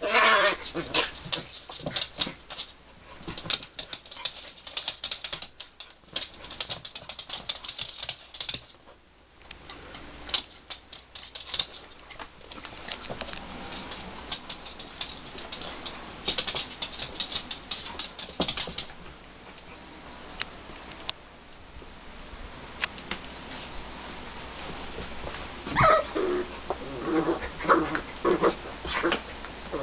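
8-week-old puppies wrestling on a plush dog bed: fabric rustling and scratching with many quick clicks, dense for most of the first twenty seconds and then quieter. A few short puppy whines come near the end.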